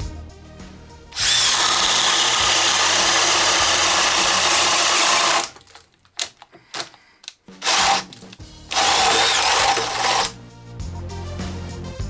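Metabo SB 18 LTX BL I cordless drill boring a 1 1/4-inch spade bit into a thick wooden beam. It runs steadily for about four seconds, pauses with a few light knocks and a short burst, then runs again for about a second and a half. Background music plays before and after.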